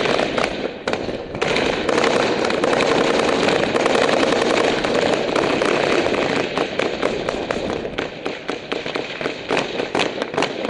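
Sustained automatic gunfire from a machine gun, a near-continuous stream of shots that breaks up into quick separate cracks, several a second, over the last few seconds.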